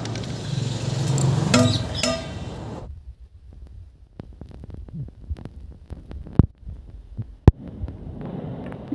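Cooking at a wood-fired clay stove with an iron wok: a steady rushing noise with two ringing metal clinks, then scattered crackles from the burning wood and two sharp clicks.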